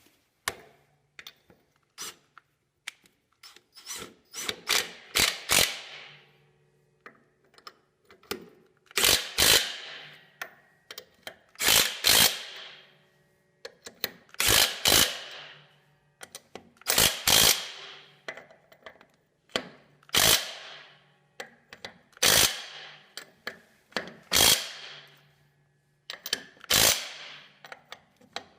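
Ratchet wrench clicking in short runs of strokes, tightening bolts on the log splitter's steel frame; a run of metallic clicks comes every two to three seconds, with pauses between.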